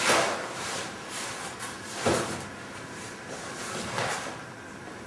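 Wooden canvas stretcher frame with canvas being turned over and shifted about on a worktable: three dull knocks and scrapes about two seconds apart, the first the loudest.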